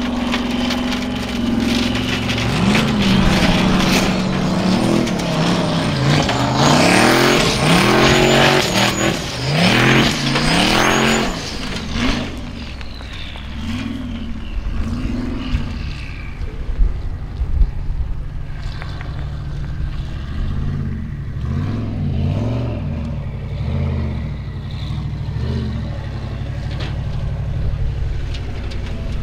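Off-road racing buggy engine revving hard, its pitch rising and falling again and again through about the first twelve seconds. After that it drops back to quieter, shorter rises and falls of the throttle.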